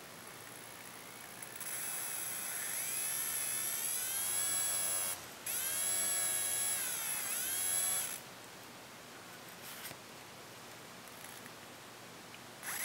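Salvaged CD-drive spindle BLDC motor whining as it spins up. Its pitch rises and falls as the speed is varied through the resistance of a hand across the control wires. It cuts out briefly about five seconds in and stops about eight seconds in, after which only faint hiss and a few small clicks remain.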